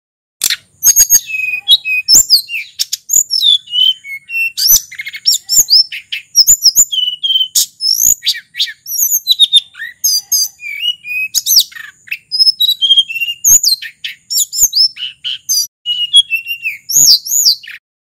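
Hill blue flycatcher (sulingan gunung) in full song: a long, fast, varied run of clear high whistles that slide up and down, with sharp clicks scattered through.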